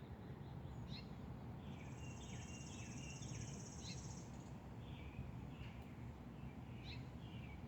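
Small songbirds chirping and calling in short, scattered notes, faint against a low background hiss. A high buzzing trill runs for about three seconds, starting near two seconds in.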